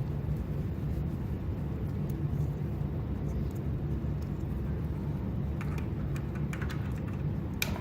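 Steady low background hum, with a few light clicks and taps near the end as small engine ignition parts are handled.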